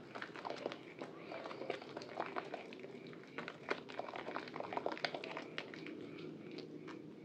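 Soaked bar of Purbasari red antibacterial soap being squeezed and pressed into thick lather, giving irregular small wet clicks, pops and squelches.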